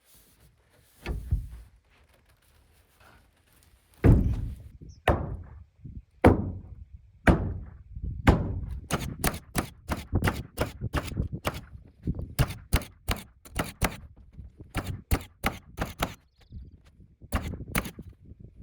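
A few heavy thumps about a second apart as subfloor sheathing is knocked down into place. Then a quick string of nail gun shots, about three a second with short pauses, driving nails through the sheathing into the joists.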